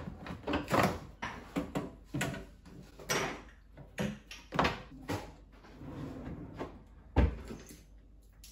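Clatter and knocks of metal-mesh tiered spice risers being shifted around inside a kitchen drawer, with one heavier thump about seven seconds in.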